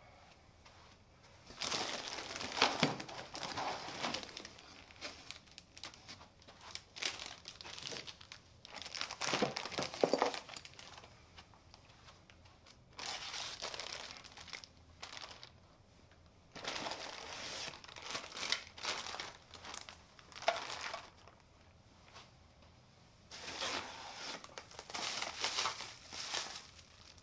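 Packaging being unwrapped and crumpled by hand, crinkling and rustling with some tearing, in several spells of a few seconds each with short pauses between.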